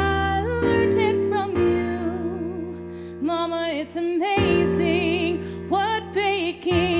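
A woman singing a musical-theatre ballad solo over a recorded backing track, with vibrato on her held notes.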